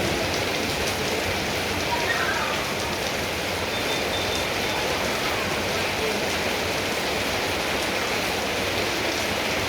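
Steady rain falling, an even unbroken hiss of drops.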